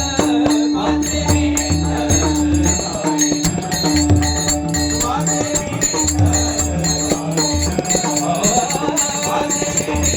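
Marathi bhajan music with no words: a held drone note, a low drum beating out a steady rhythm, and small hand cymbals ringing, with a melody gliding above them.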